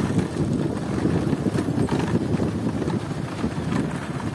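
Bullock cart rolling along a dirt track behind a pair of trotting bulls: a steady low rumble with wind noise on the microphone.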